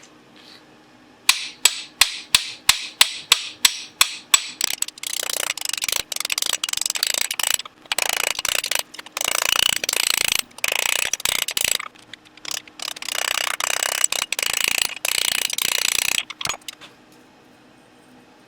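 Hammer striking steel on an anvil in forge work: about a dozen evenly spaced blows, about three a second, then a long run of fast, closely spaced metallic strikes with a few short breaks, stopping a couple of seconds before the end.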